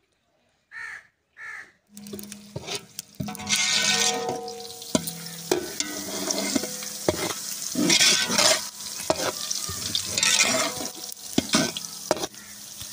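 Sliced onions sizzling as they fry in ghee in a large aluminium pot, a steel ladle stirring them and scraping and clicking against the pot, starting about two seconds in.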